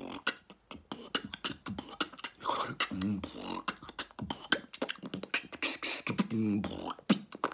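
A man beatboxing: a fast run of clicks, pops and hissing mouth percussion, with short hummed, pitched notes about three seconds in and again around six seconds.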